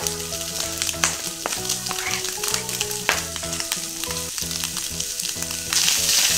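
Minced onion and garlic sizzling in hot olive oil with browned ground beef-and-pork mince in a small frying pan, with a few sharp knocks as they are tipped in off a cutting board. Near the end a spatula starts stirring and the sizzle gets louder.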